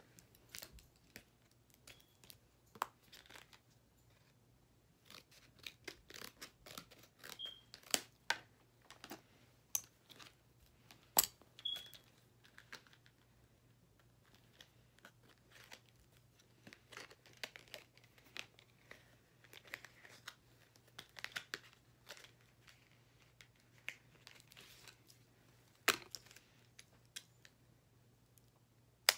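SD card retail package being torn and picked open by hand, with scattered crinkles, small tears and clicks of plastic and card at irregular intervals. The sharpest click comes about eleven seconds in.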